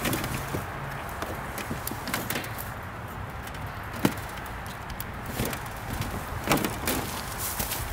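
Scattered light knocks and clicks as the reflector panels of a solar oven are handled and fitted into place, the sharpest knock about four seconds in.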